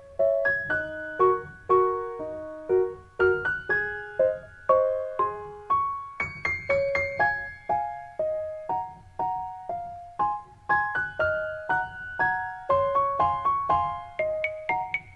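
Background music: a light piano melody of short, quickly fading notes, a few a second, over a soft low accompaniment.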